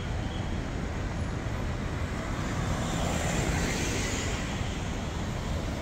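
Road traffic: a steady rumble of cars driving past, swelling as one goes by about three to four seconds in.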